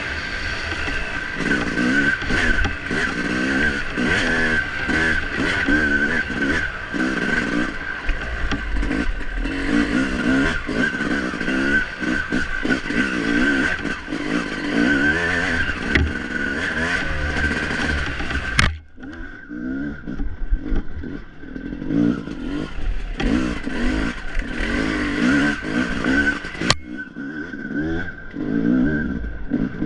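Off-road dirt bike engine revving up and down again and again under hard riding over rough ground. The sound drops off abruptly about two-thirds of the way through, then returns lower.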